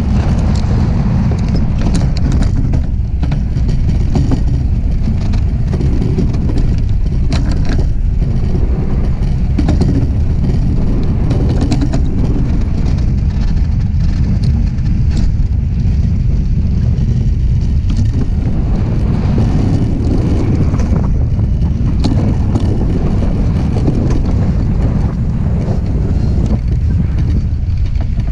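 DN iceboat's steel runners rumbling over the ice at speed: a loud, steady low rumble with wind on the microphone and scattered sharp ticks and crackles from the ice.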